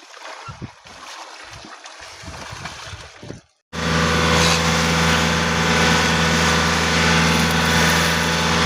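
Water splashing and slapping against a boat's hull with low knocks. A moment's break follows about three and a half seconds in, and then a boat engine runs loud and steady at an even pitch.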